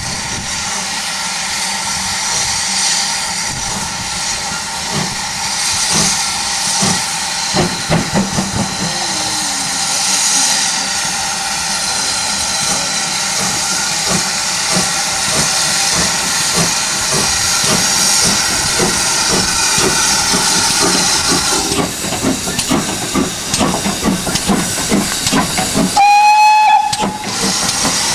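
GWR 4575-class 2-6-2 prairie tank locomotive 5542 pulling away under steam. Steam hisses steadily, exhaust beats come in from about six seconds in, and a short whistle blast near the end is the loudest sound.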